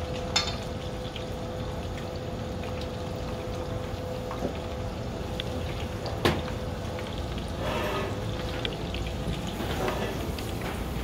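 Steady kitchen background hum and noise, broken by a few sharp clinks of utensils and bowls; the loudest clink is about six seconds in.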